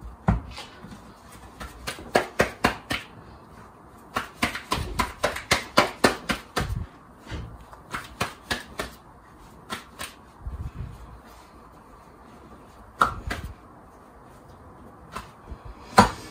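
Soft naan dough being slapped and patted by hand on a wooden board and between the palms to stretch it: runs of quick slaps, several a second, with pauses between.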